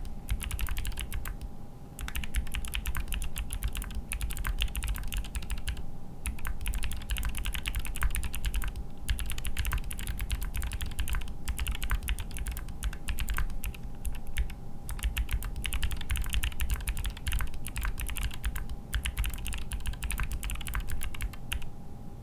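Typing on a mechanical keyboard with clicky Gateron Melodic switches, built on a Promenade PCB in a Salvation case: fast, steady runs of keystroke clicks broken by a few brief pauses.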